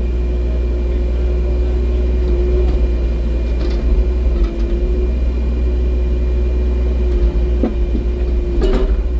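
Excavator engine running steadily under work, a low rumble with a constant hum and a couple of brief knocks near the middle and end, picked up by a phone in the operator's pocket in the cab.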